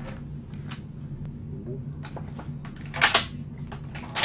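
Plastic takeout containers and lids being handled: a few light clicks, a loud crackle about three seconds in and a sharp snap near the end, over a low steady hum.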